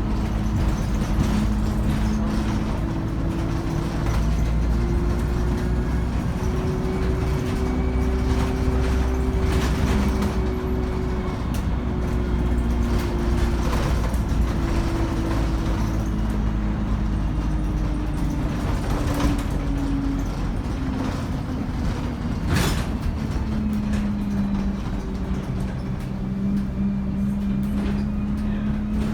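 ADL Enviro 200 bus with a three-speed Voith gearbox running under way: engine rumble with a turbo and transmission whine that slowly rises and falls in pitch. A single sharp click a little over three quarters of the way through.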